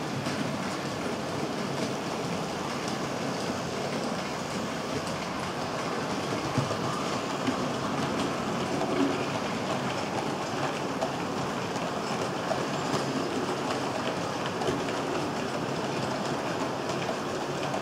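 Model goods train of empty flat wagons rolling along the track: a steady rolling rumble with small clicks of the wheels over the rail joints, a little louder from about six seconds in as the wagons pass close by.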